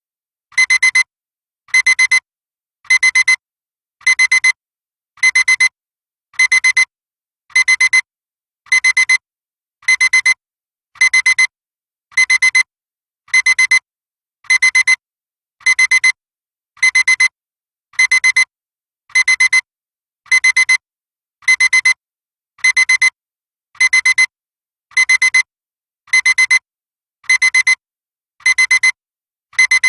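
Electronic alarm clock beeping: short bursts of a high-pitched beep repeating about once a second, evenly and without change.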